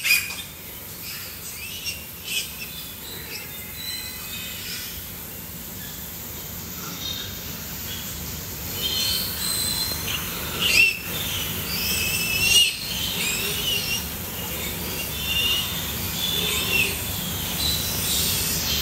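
Piglets suckling a sow squeal and squeak in short, high, wavering calls. The calls are sparse at first and come thick and fast in the second half, over a steady low hum, with a couple of sharp knocks near the middle.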